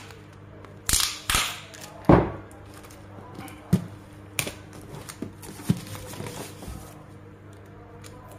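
Cardboard cartons handled during packing: three sharp knocks and scrapes in the first two seconds, the last the loudest, then lighter taps and rustles as the box is pressed and settled. A steady low hum runs underneath.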